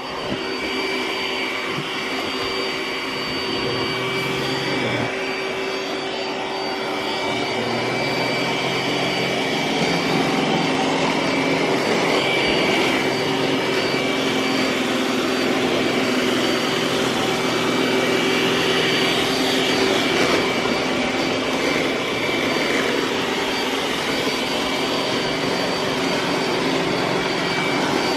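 iRobot Roomba s9+ robot vacuum running on max power, a steady suction whine and brush-roll noise with a low hum that shifts in pitch now and then as it works across the floor and rug.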